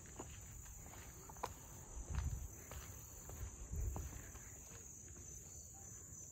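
A steady, high-pitched drone from an insect chorus in the summer woods. It is broken by a few faint clicks and two low bumps about two and four seconds in.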